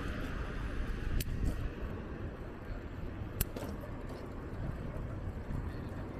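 Steady low rumble of a bicycle ride, wind and road noise on the microphone, with two sharp clicks, one about a second in and one past three seconds.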